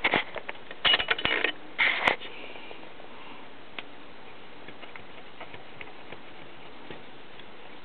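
A cotton swab scrubbing the metal speed-change shaft of a BSR UA25 record changer, heard as three short bursts of scratchy rubbing and clicking in the first two seconds. After that come only a few faint ticks.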